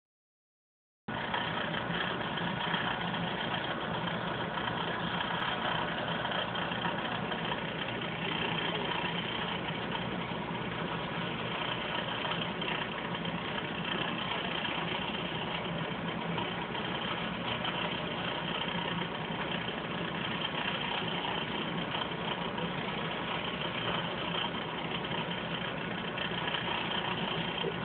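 Steady mechanical hum with an even hiss, starting about a second in and holding unchanged.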